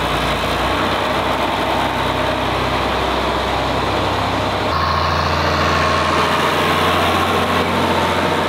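John Deere farm tractor engine running steadily while the tractor drives. About five seconds in, the engine note changes abruptly to a deeper, stronger one.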